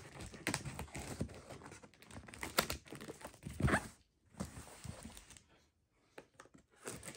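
A knife cutting and scraping along packing tape on a cardboard box, with irregular scrapes and taps as the box is handled and turned. There is a short lull about two-thirds of the way through.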